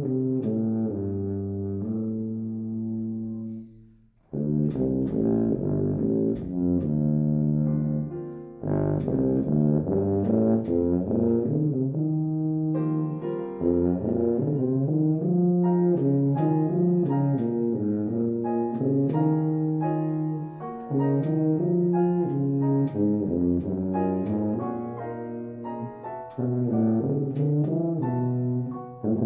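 Tuba playing a sustained melody in long low notes, accompanied by piano. The music breaks off for a moment about four seconds in, then goes on.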